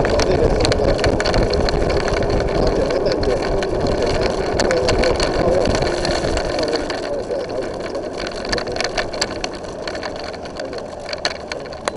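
A vehicle's engine and road noise, recorded by a dash camera on the vehicle while it drives: a steady, noisy drone that gets quieter through the second half, with scattered light clicks and rattles.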